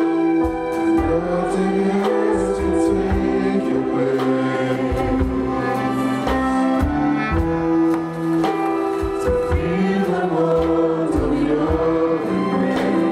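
Praise team of singers with microphones singing a slow worship song, with sustained, held notes over instrumental accompaniment.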